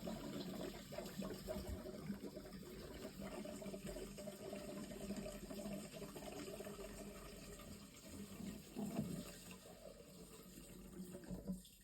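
Fuel being poured into a nearly empty fuel tank, a steady liquid pour that dies away near the end.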